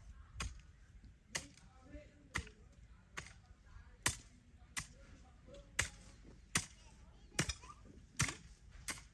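A hand tool striking again and again in a steady rhythm, about one sharp blow a second. Faint voices can be heard between the blows.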